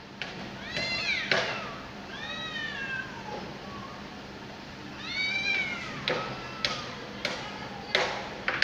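Cats in a territorial standoff, one yowling three long drawn-out calls that rise and fall in pitch. Over the last couple of seconds comes a run of short, sharp sounds about every half second.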